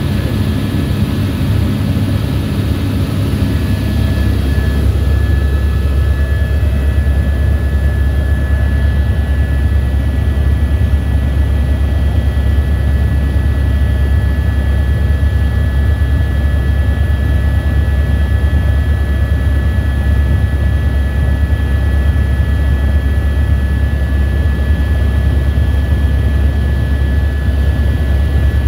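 Small aircraft in flight heard from inside its cabin: a steady, deep engine and rotor/propeller drone with a thin steady whine above it.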